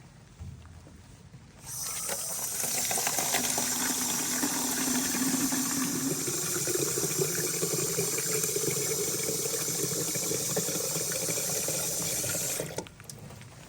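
Water running into a container, starting about two seconds in and cutting off sharply near the end, with a tone inside the rush that rises in pitch as the vessel fills.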